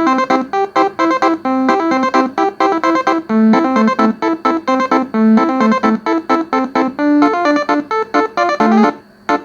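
Multi-trumpet 'telolet basuri' bus horn with 12 tuned horn trumpets, sounding a fast melody of short, separate notes from a MIDI file. It sounds organ- or keyboard-like. The notes stop briefly near the end.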